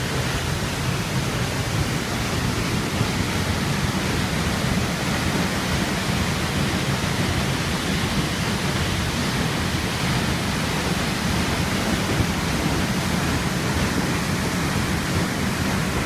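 Waterfall plunging into its plunge pool at close range: a loud, steady rush of falling and churning water, heaviest in the low end.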